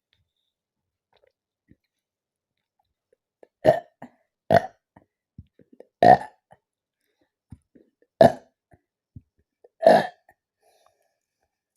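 A woman burping loudly five times, fizzy soda burps from carbonated cola, each short and one to two seconds apart, starting a few seconds in.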